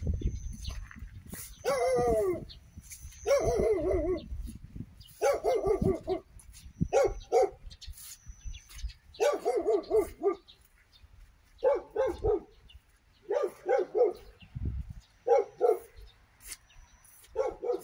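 A dog barking over and over, single barks and quick pairs every second or two, with one longer falling bark about two seconds in.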